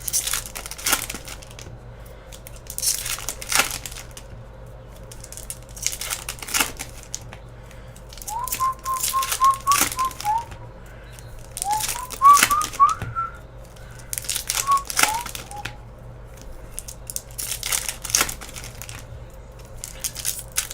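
Foil trading-card pack wrappers being torn open and crinkled in short rustling bursts every second or two. A person whistles a run of short notes midway through.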